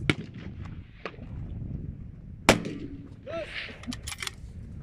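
Two rifle shots from a scoped precision rifle, about two and a half seconds apart, the second the louder and ringing on briefly. A quick run of sharp clicks follows about a second and a half after the second shot.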